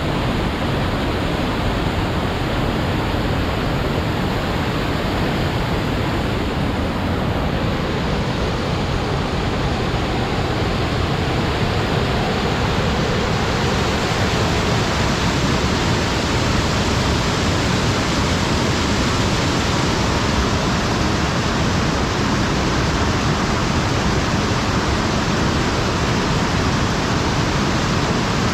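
Waterfall rushing: a steady, dense noise of falling water, its higher hiss growing stronger about halfway through.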